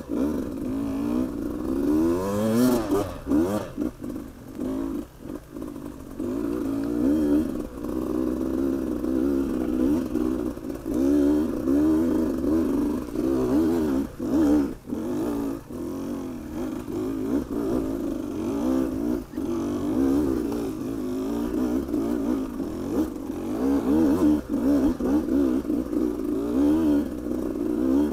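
Beta 200RR two-stroke single-cylinder enduro motorcycle engine revving in first gear under load on a hill climb, its pitch swinging up and down with the throttle every second or so. Occasional knocks and clatter from the bike over rocks.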